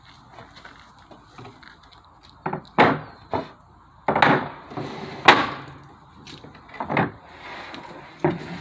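Solid alder table leaves being handled: a series of wooden knocks and short scrapes, wood on wood, the loudest about three and five seconds in.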